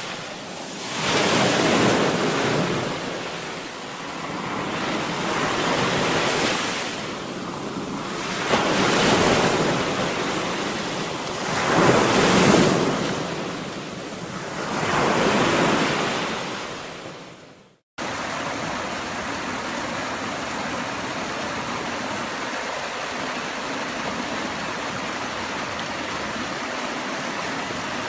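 Sea waves washing in, swelling and fading every three to four seconds. About two-thirds of the way through, the sound cuts off abruptly and gives way to a steady rushing of water, like a stream or waterfall.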